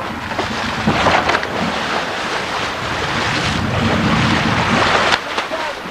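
Wind buffeting the microphone over the rush and splash of sea water breaking along the hull of a boat under way.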